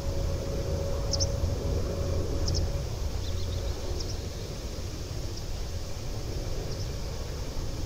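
Distant jet airliner's engines, a low steady rumble with a faint whine that fades out about three seconds in. A bird chirps high and short about every second and a half over it.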